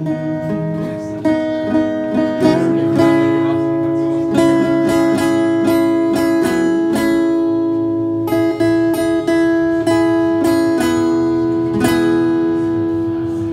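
Solo acoustic guitar strummed, chords ringing on between strokes, with a last strong strum near the end. No voice comes in.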